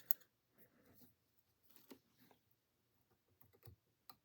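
Small fly-tying scissors snipping away trimmed material ends, a few faint, sharp clicks a second or two apart with light rustling between.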